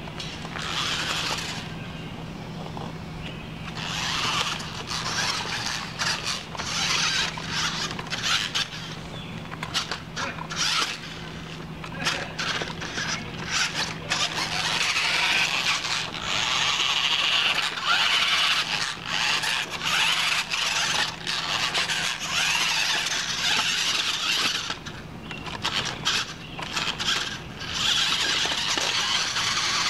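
Electric drive motors and gearbox of a Maisto RC rock crawler whining in stop-start bursts as it crawls over rocks, with one longer unbroken run in the second half.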